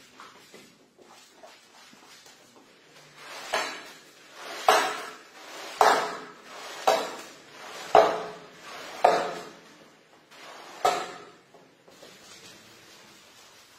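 Floor squeegee pushed in repeated strokes through a soap-soaked shag rug, forcing the foamy water out. There are seven strokes about a second apart, each swelling and peaking in a sharp knock, starting a few seconds in and stopping near the end.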